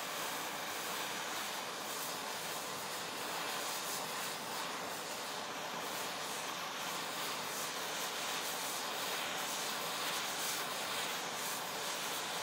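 Handheld gas torch burning with a steady hiss, its blue flame heating the head of a metal branding iron.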